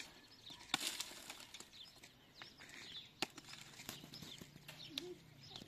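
Small birds chirping in short, quick calls, broken by a few sharp clicks or knocks. A low steady hum comes in over the last second or two.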